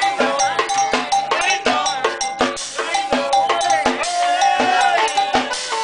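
Live norteño band with accordion and saxophone playing a dance tune over a quick, steady percussion beat.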